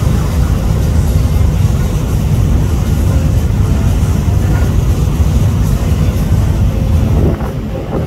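Steady low rumble of a small excursion motor ship under way, its engine and wind on the microphone mixed together. The level drops slightly about seven seconds in.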